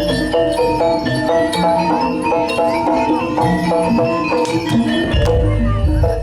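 Live jaranan gamelan music from East Java: metallophones play quick runs of short ringing notes over drum strokes and a deep gong.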